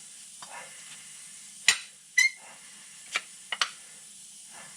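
A few sharp metal clicks and clinks from handling metal parts, one of them ringing briefly, over a faint low hum. The loudest clicks come a little before and after the middle.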